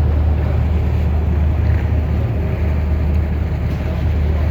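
Steady low rumble of a moving bus, with no distinct knocks or changes.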